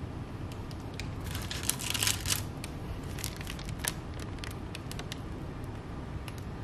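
Baking parchment crinkling and rustling under a hand lifting macaron shells off the tray, for about a second starting a second in, then scattered light clicks, over a steady low hum.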